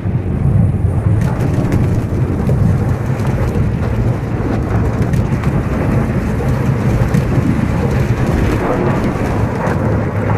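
Avalanche sound effect: a loud, deep, continuous rumble that starts suddenly and holds steady.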